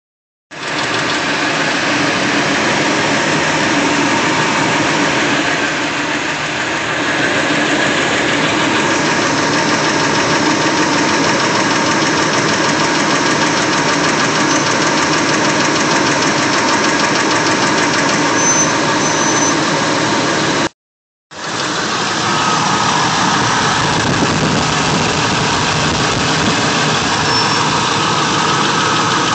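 Ford 5.4 L two-valve Triton V8 idling with a rapid, steady tick in time with the engine. The owner suspects the lash adjusters, and also names a loose timing chain, rocker arms or an exhaust manifold leak at a broken stud as possible causes.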